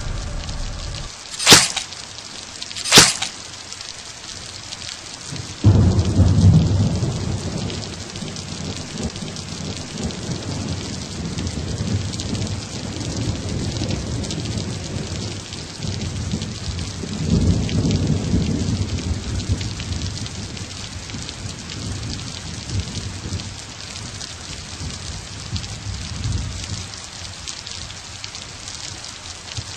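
Thunderstorm: steady rain with two sharp cracks of thunder near the start. A low rumble of thunder sets in suddenly about six seconds in and dies away, then swells again around eighteen seconds.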